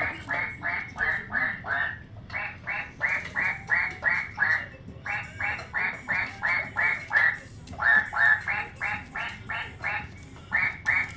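Rubber squeaky toy squeaking over and over as a puppy chews it, in quick runs of six to eight squeaks, about four a second, with short pauses between runs.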